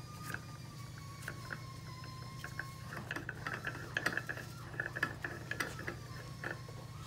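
Metal clicks and ticks from a Posi-Lock puller as its screw is cranked by hand on a JF011E CVT pulley. The clicks come much faster from about three seconds in, over a steady low hum.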